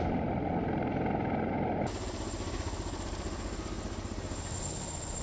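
Steady aircraft engine rumble. About two seconds in it cuts to another recording, where a steady high whine sits over the rumble.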